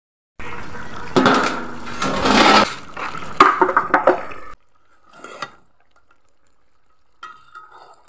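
Metal cooking pot and ladle: the lid is handled and a metal ladle stirs through curry, scraping and clinking against the pot, loudest in the first half. Only a few faint scrapes follow.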